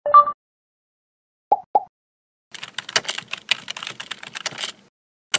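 Computer keyboard typing sound effect: a quick run of keystrokes lasting about two seconds. It is preceded by a short two-note blip at the very start and two short clicks about a second and a half in, and one sharp click comes right at the end.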